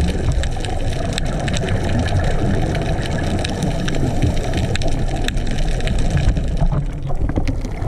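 Underwater reef ambience picked up by a camera in its housing: a steady low rush of water with many scattered sharp clicks and crackles.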